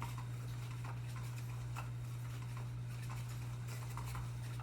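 Light irregular ticks and pattering taps of a cat playing with a toy, its paws and the toy knocking about, over a steady low hum.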